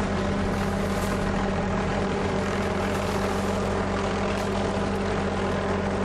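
A large engine running with a steady, even drone.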